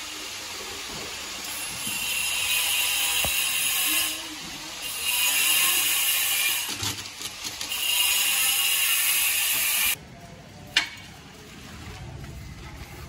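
Three long hissing scraping noises of a couple of seconds each during floor-tile work, then the sound drops off abruptly, leaving quieter scraping and one sharp click.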